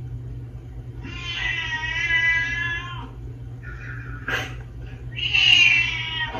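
A cat meowing: one long, drawn-out meow about a second in, then a shorter meow near the end that falls in pitch, with a brief click between them, over a steady low hum.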